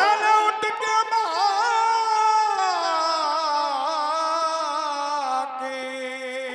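Qawwali singer's long wordless vocal line with instrumental accompaniment, wavering in quick ornaments, then gliding slowly downward and settling on a held lower note near the end.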